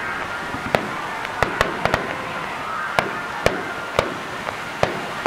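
Aerial fireworks shells bursting, about nine sharp bangs at uneven intervals, some in quick pairs, over a steady background hiss.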